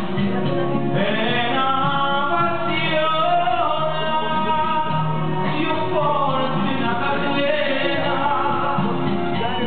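A man singing a song into a handheld microphone, holding long notes that glide in pitch, over steady instrumental accompaniment.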